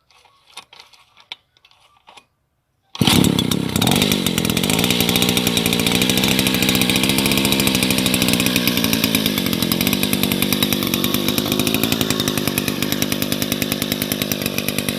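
Old chainsaw engine running steadily and loudly, with a fast, even firing beat. It comes in abruptly about three seconds in, after a few faint clicks. It is still cold and smoking.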